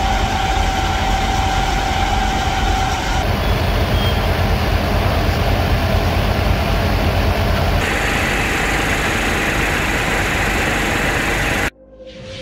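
Fire truck's engine and pump running steadily at the scene, a constant rumble. It cuts off near the end.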